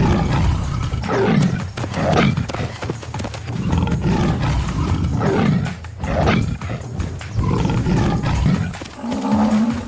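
A large animal calling loudly again and again, low-pitched calls about a second long that sweep up and down in pitch, coming every second or two.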